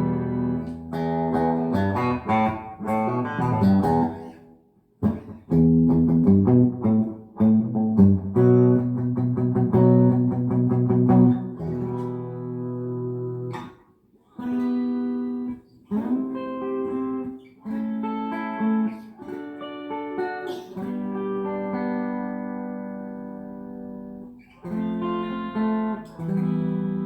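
G&L CLF Doheny V12 electric 12-string guitar played: ringing chords and picked single notes in short phrases, with brief breaks about five seconds in and again halfway through.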